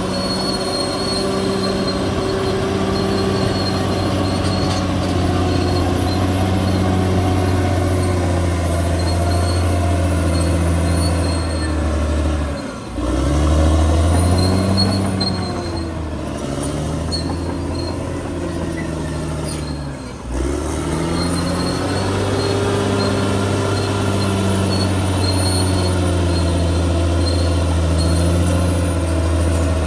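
CAT D6R XL bulldozer's diesel engine running steadily under load, with a thin high whine from the machine. The engine note briefly dips and changes pitch twice, about a third and two thirds of the way through.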